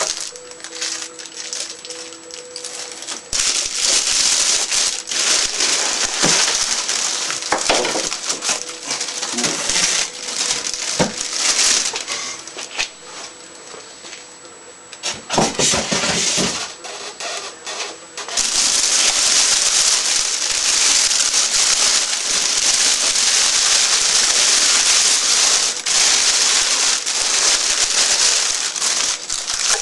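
Packing material being handled while unboxing: rustling and crinkling of plastic and styrofoam with scattered knocks and clicks, becoming a continuous crackling rustle about two-thirds of the way through.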